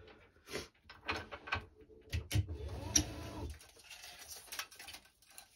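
Racquet stringing in progress: scattered clicks and rubbing as the string is tensioned on the stringing machine and drawn through the racket frame, with a short whine about halfway through.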